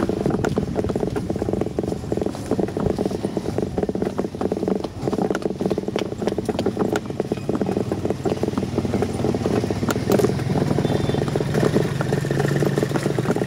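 Steady rattling and rolling over a concrete road. In the last few seconds a motorcycle tricycle's engine runs close by with a steady low hum.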